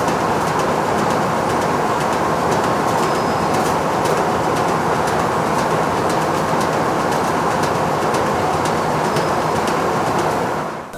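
Factory machinery running steadily: a dense, even clatter with many small ticks and clicks, which stops just before the end.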